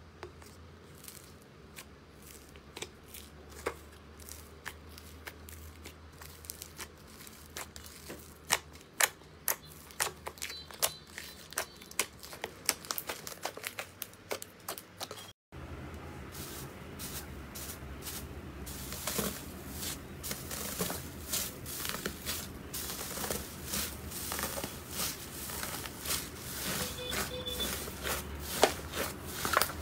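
Slime being worked, giving many sharp crackling clicks and pops. About halfway there is an abrupt change to a louder, denser crackle.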